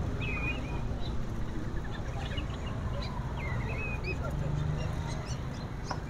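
Caged songbirds giving a few short, thin chirps over the steady background noise of a busy bird market.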